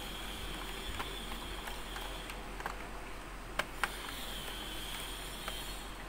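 Small screwdriver working screws out of an Acer laptop's plastic base: a few light ticks, with two sharper clicks close together about three and a half seconds in, over a steady background hiss.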